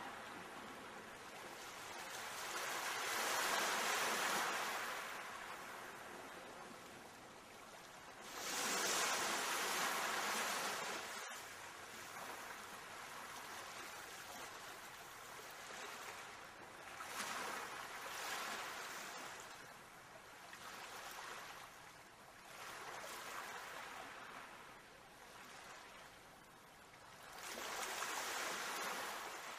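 Soft rushing noise of waves washing in, swelling and fading every few seconds.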